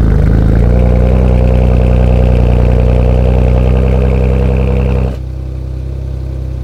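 Car engine idling steadily just after being started, an even, unchanging drone. About five seconds in the sound drops abruptly to a lower level.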